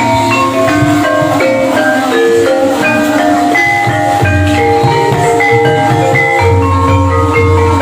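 Banyumasan gamelan music: many short mallet-struck pitched notes interlocking over a steady low drum.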